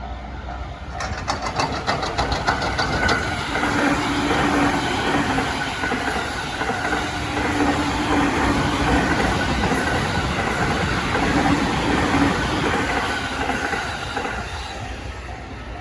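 Train passing over a level crossing: wheels clattering over the rail joints as it swells up about a second in and fades near the end, with a steady electric motor tone. The crossing's warning bell keeps ringing through it.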